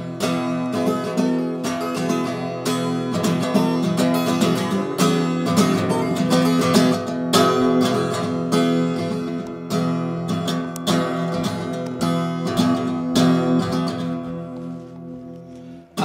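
Acoustic guitar strummed in a steady rhythm, chords ringing between strokes, growing quieter near the end.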